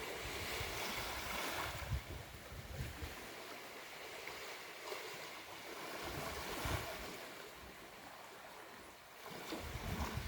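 Ocean surf on a beach, waves washing in and easing off in slow swells, with a low rumble of wind on the microphone that grows near the end.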